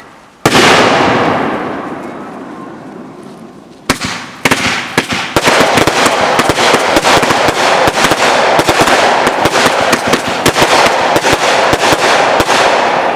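Fireworks going off. A loud bang about half a second in fades away slowly over about three seconds. A second bang near four seconds starts dense, rapid crackling that keeps going for about nine seconds.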